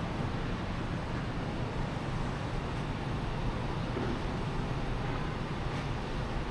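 Steady city street noise: a continuous low traffic rumble with no single event standing out.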